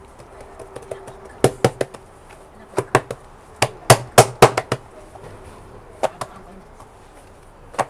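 Pizza dough being stretched by hand, slapped in quick groups of sharp smacks, the loudest run about four seconds in.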